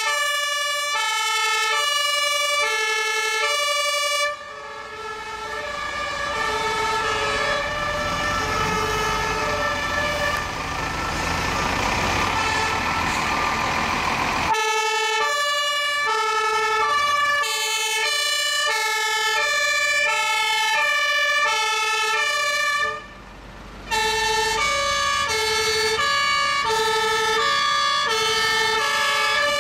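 German two-tone fire-engine sirens sounding as a convoy of fire trucks drives past, one siren after another, each alternating evenly between a high and a low note. Between about 4 and 14 seconds a passing fire truck's diesel engine and tyres are the loudest sound, with a fainter siren under it.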